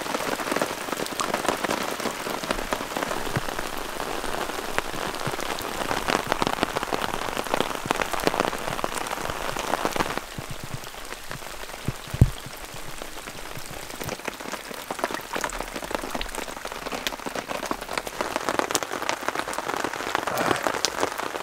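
Steady heavy rain pattering on a tarp and the pine-needle forest floor, with water dripping off the tarp's edge; a dense patter of drops, a little softer from about halfway, with one short low thump a little past the middle.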